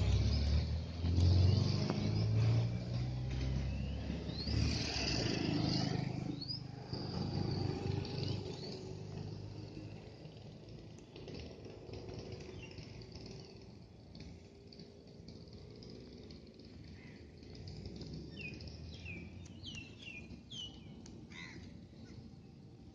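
A motor vehicle's engine running, loudest at the start and fading away over the first ten seconds or so, over outdoor background noise. Small birds chirp throughout, with a run of quick chirps near the end.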